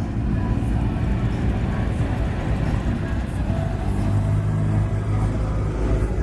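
A car engine running steadily at low revs, getting a little louder about two-thirds of the way through, with people talking in the background.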